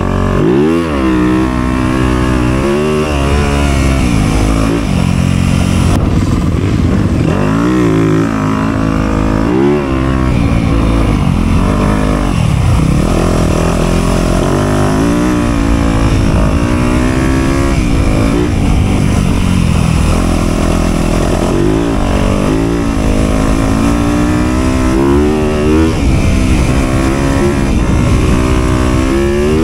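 Dirt bike engine being ridden hard on a trail, revving up and dropping back over and over as the throttle opens and closes, every second or few seconds.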